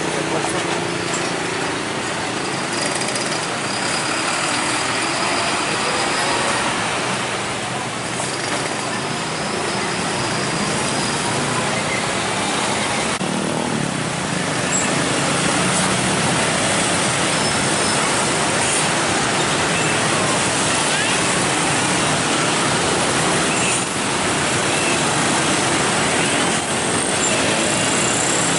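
Road traffic: heavy trucks and motorcycles passing with their engines running, a steady dense wash of noise that grows a little louder about halfway through.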